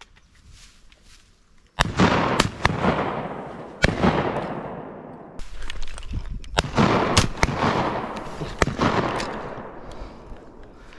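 A volley of shotgun shots at wood ducks, about eight over some seven seconds starting about two seconds in, some only half a second apart, each trailing off in a long echo across the timber.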